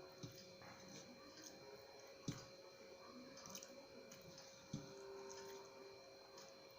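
Faint eating sounds: soft wet squishing and chewing as rice and curry are eaten by hand, with three soft knocks, the loudest just past two seconds.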